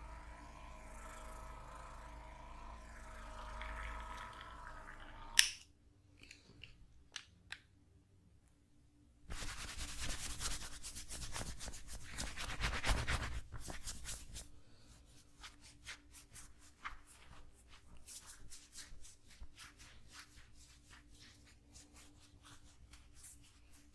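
Hands rubbing over skin and clothing during a massage: a rustling rub that starts about nine seconds in and then comes and goes, with many small clicks and taps. It follows a faint steady hum and a single sharp click about five seconds in.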